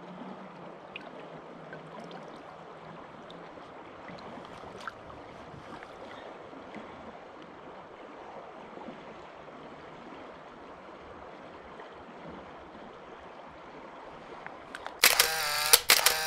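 Steady rush of flowing river water, with a few faint clicks. Loud music starts near the end.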